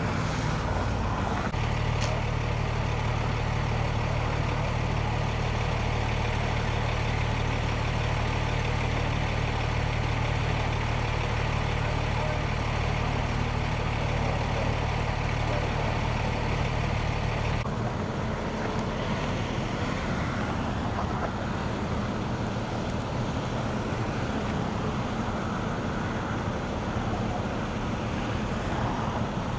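A motor vehicle engine idling with a steady low hum. About two-thirds of the way through it changes abruptly to the steady rush of freeway traffic going by.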